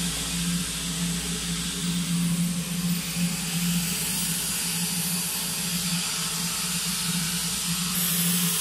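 Welding arc on a small-bore stainless steel pipe root pass, hissing steadily with a low hum underneath.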